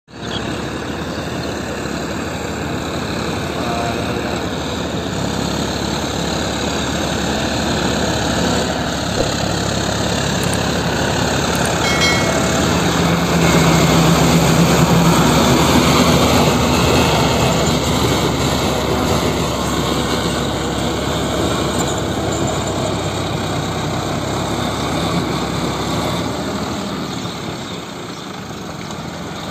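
John Deere 5405 tractor's diesel engine running under load while its rotavator churns through a flooded paddy field, a steady mix of engine note and splashing, chopping mud. It grows louder toward the middle as the machine passes close, then eases off.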